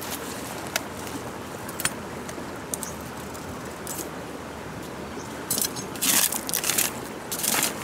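Machete blade scraping and chipping at a wooden stake: a couple of sharp clicks in the first two seconds, then several loud rasping strokes in the last two seconds, over a steady background hiss.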